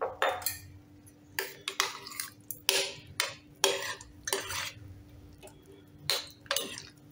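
A metal spoon stirring chopped vegetables and water in an aluminium pressure cooker, scraping and clinking against the pot in about a dozen quick, irregular strokes.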